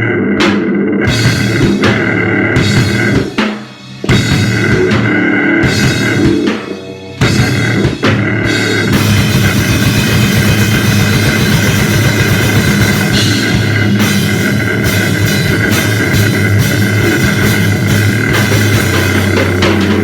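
Instrumental powerviolence noise: a drum kit with cymbals under a heavily distorted, droning instrument fed through a noise/fuzz effects pedal, with no vocals. Stop-start hits break off twice in the first seven seconds, then from about nine seconds the drums go into a continuous fast blast beat under the steady distorted drone.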